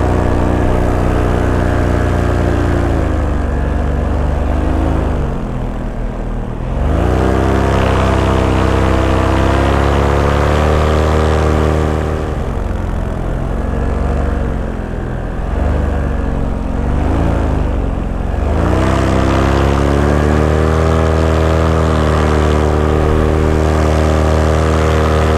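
Paramotor engine and propeller running under way, the pitch dropping as the throttle is eased back about five seconds in and again a few times in the middle, then climbing back to a steady full-power note.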